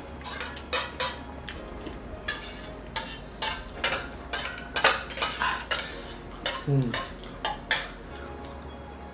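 Steel spoons clinking and scraping against stainless steel plates and bowls in an irregular run of sharp clicks, which stops about eight seconds in.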